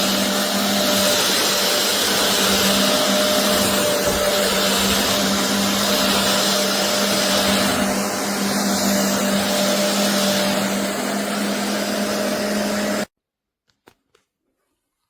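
BISSELL Revolution HydroSteam carpet cleaner's suction motor running steadily with a constant hum. It cuts off abruptly about 13 seconds in, followed by a few faint clicks.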